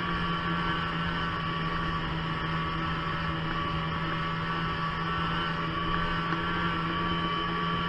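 Snowmobile engine running at a steady cruise with a constant droning hum and a higher whine over it, muffled as heard through a waterproof camera housing.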